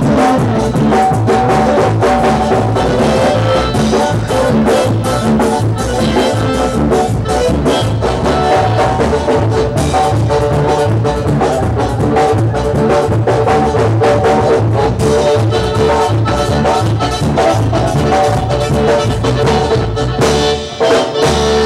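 Live dance band playing loud, upbeat music with a steady, even beat. The music dips briefly near the end.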